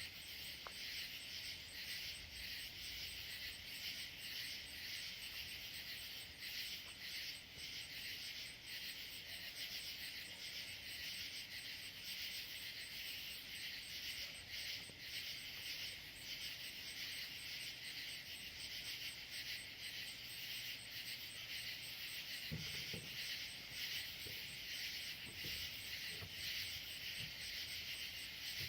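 Night chorus of crickets and other insects: a dense, steady trilling with a fast, evenly pulsing high note over it.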